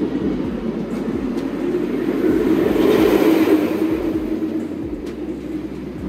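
Rocky Mountain Construction hybrid roller coaster train rumbling along its steel track over the wooden structure, swelling to its loudest about halfway through as it passes close and then easing off.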